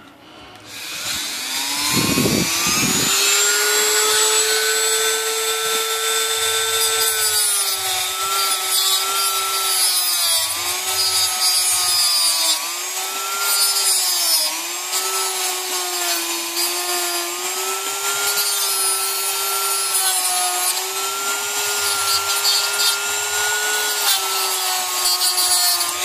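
Small high-speed rotary tool with an abrasive disc spinning up in a rising whine, then grinding the steel jaw of a typewriter bender. The whine drops in pitch each time the disc bites into the metal, as the jaw is ground a little wider.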